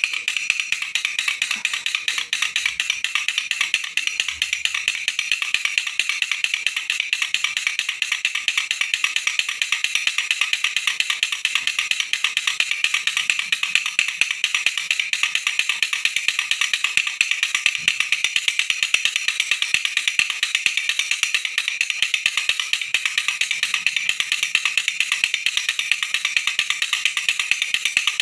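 Baby rattle shaken steadily and rapidly, its small beads clicking against the plastic shell in an even, continuous rattle.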